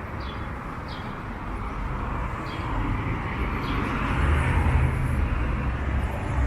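City street traffic, with a vehicle passing that grows to its loudest about four to five seconds in and then fades.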